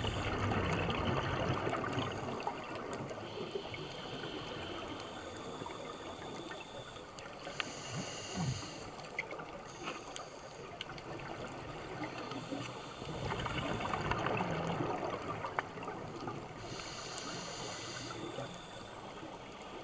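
Scuba regulator breathing heard underwater: two long bubbling exhalations, one at the start and one past the middle, each followed a few seconds later by a short hissing inhalation.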